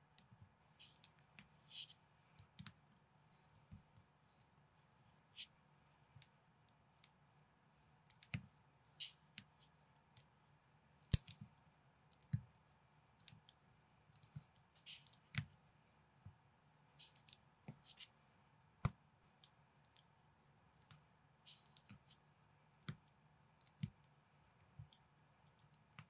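Plastic building bricks being handled and pressed together by hand: irregular sharp clicks and snaps, sometimes in quick pairs, over a faint steady background hum.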